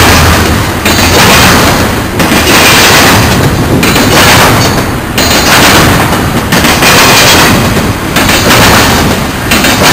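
Double-stack container train's wheels pounding over a railroad diamond crossing, a loud continuous clatter that swells and dips about every second or so as each car's trucks pass over.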